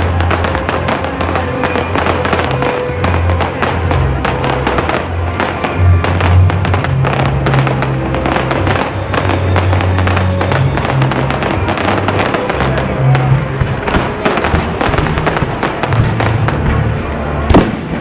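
Fireworks display going off in a dense run of sharp bangs and crackling pops. Music with sustained low notes plays underneath.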